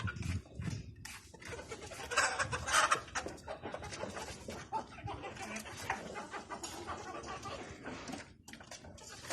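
A flock of native chickens clucking, with a louder stretch of calls about two seconds in.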